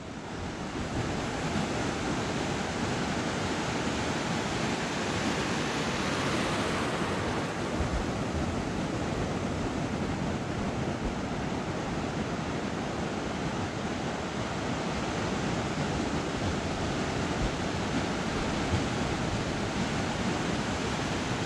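Ocean surf washing in steadily on a beach, swelling briefly about six to seven seconds in.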